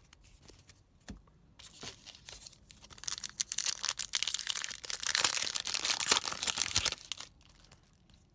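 Wrapper of a baseball trading-card pack being torn open and crinkled. A few light handling clicks come first, then about four seconds of dense crackling and tearing.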